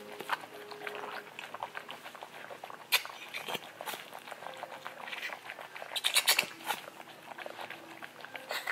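Newborn puppy squeaking as its airway is suctioned with a rubber bulb syringe, with crackling and rustling handling sounds from gloves and a towel. The loudest bursts come about three seconds and six seconds in.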